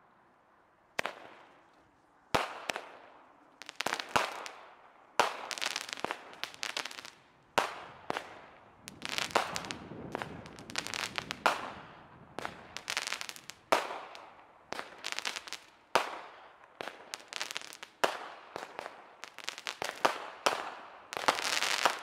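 Aerial fireworks going off: a string of sharp bangs, each trailing off in crackle. They start about a second in and come faster and more overlapping toward the end.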